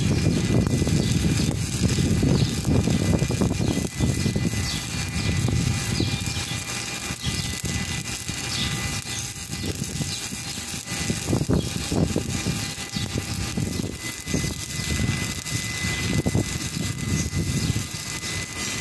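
Stick (shielded metal arc) welding: the electrode arc crackles steadily as the rod burns, over a low, wavering rumble.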